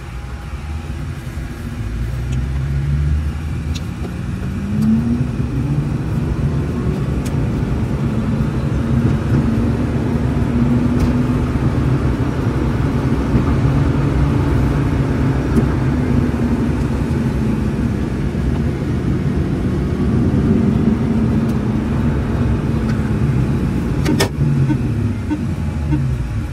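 Carver S+ electric tricycle heard from the driver's seat: the electric drive whine rises as it accelerates over the first few seconds, holds steady under wind and road noise at around 50 km/h, then falls as it slows near the end.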